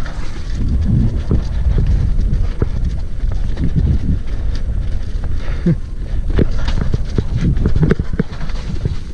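Hardtail mountain bike rattling and knocking as it rolls fast down a rough, damp dirt trail, with a steady low rumble from the tyres and many irregular knocks over bumps.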